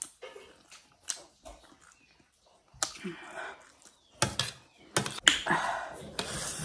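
Metal fork and spoon clicking and scraping on a ceramic plate as rice and noodles are scooped, mixed with close-miked chewing. The clatter grows louder and busier about four seconds in.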